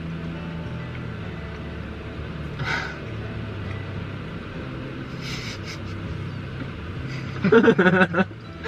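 A low steady hum, then a loud burst of a person's vocal noises for about the last second, a reaction while tasting a jelly bean that may be foul-flavoured.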